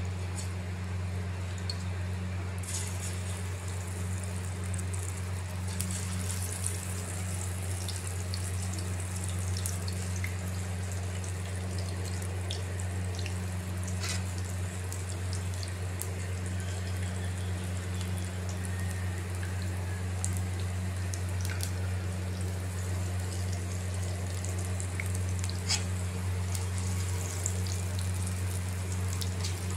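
Gram-flour pakoras deep-frying in hot ghee: a steady sizzle with scattered crackles and pops, picking up a few seconds in. A constant low hum runs underneath.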